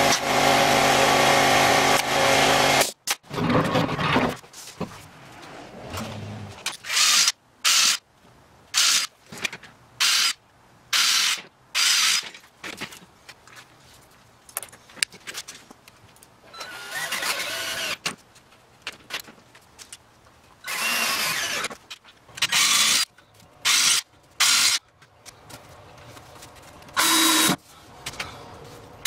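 Cordless drill driving screws. It runs steadily for about three seconds, then gives many short bursts of under half a second, with a few longer runs of a second or two.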